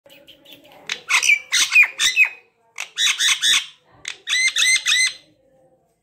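Parrot squawking in three quick runs of short, sharp calls, quiet in the last half second.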